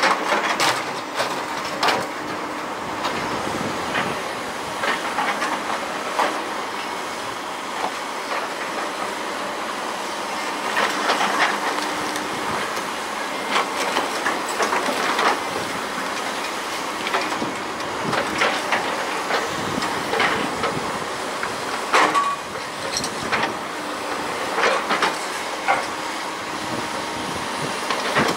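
Volvo tracked excavator's diesel engine running while its bucket crushes and drags sheet metal and building debris, with irregular crunching and clanking crashes throughout. The loudest crash comes about three-quarters of the way through.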